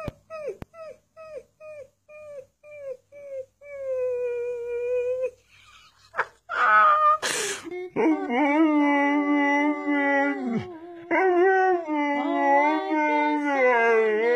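A husky puppy gives a quick run of short yips, each falling in pitch, then one longer held whine. After a brief rushing noise, an adult husky howls in long, wavering, loud calls, breaking off once for a moment.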